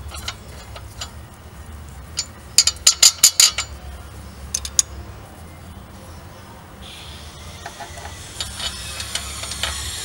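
Loose steel nuts clinking as the oversized nut and spacer are spun off a newly seated wheel stud by hand: a quick run of sharp metallic clicks about two and a half seconds in, and two more a little later. A steady hiss and scattered clicks come in near the end, over a low hum throughout.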